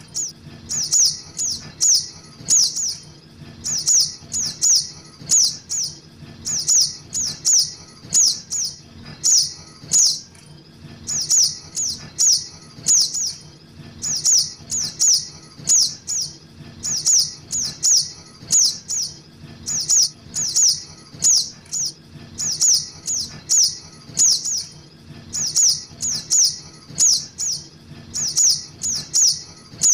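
Young spiderhunters (sogok ontong) calling: short, sharp, high chips that drop slightly in pitch, in quick clusters of two to four, repeating without a break. It is a looped bird-lure call (suara pikat) of begging fledglings.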